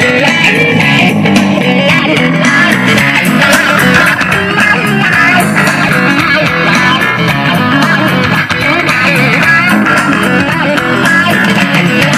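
Guitar-led music with bass, played loud through a pair of vintage Wald Sound loudspeakers.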